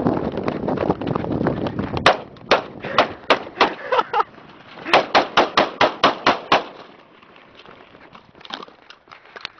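M4 carbine firing rapid semi-automatic shots: a string of about nine, a short pause, then about eight more, roughly four to five shots a second. A rough, steady rushing noise comes before the first shot, and a few fainter shots come near the end.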